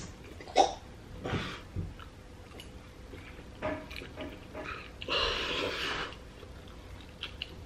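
A man eating spaghetti with a fork: a few short, sharp breaths through the nose, then a long slurp of noodles about five seconds in, with chewing.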